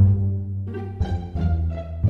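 Background music with a low bass line, a new note sounding every half second or so.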